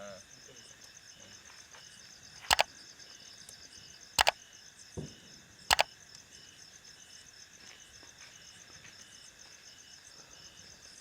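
Steady, rapidly pulsing chirping of insects, broken by three sharp clicks about a second and a half apart near the middle and one softer knock.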